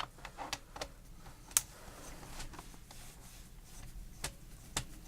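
Scattered light clicks and taps from a plastic HP computer keyboard being handled and worked with a screwdriver as its screws are taken out, the sharpest about a second and a half in.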